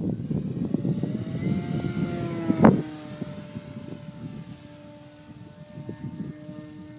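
Electric RC aerobatic plane's brushless motor and 15x7 propeller whining in flight, rising in pitch over the first two seconds, then holding steady and easing slightly near the end. A loud low rumble covers the first part and ends in a sharp thump a little over two and a half seconds in.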